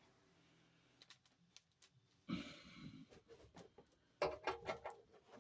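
Near silence for about two seconds, then faint rustling and a string of light clicks and knocks in the last second or so, as of small parts or tools being handled.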